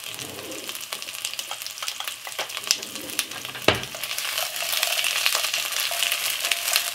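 Chopped onion, carrot, ginger and garlic sizzling in hot peanut oil in an enamelled pot, with crackling throughout. Partway through they are stirred with a spoon that knocks sharply against the pot once, and the sizzle grows louder as the pieces are turned in the oil.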